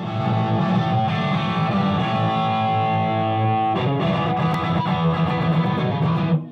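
Electric guitar music: one sustained chord rings, a new strummed chord comes in about four seconds in, and the sound cuts off sharply near the end.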